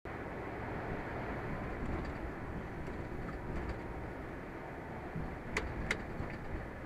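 Steady road and engine noise of a vehicle driving, picked up inside the cab by a dashcam's microphone, with two sharp clicks about a third of a second apart near the end.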